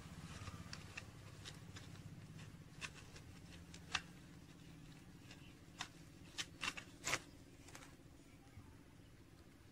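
Faint crinkles and clicks of a soil-filled plastic bottle being gripped and shifted by hand, with one sharp click about four seconds in and a quick cluster of clicks between six and seven seconds in.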